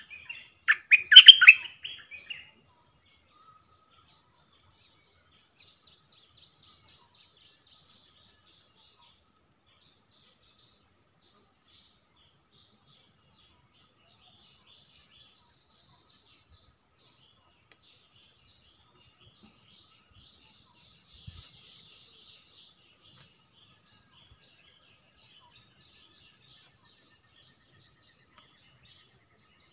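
A stripe-throated bulbul gives a short, loud burst of quick song notes about a second in. Afterwards only faint high chirping is left over a faint steady high tone.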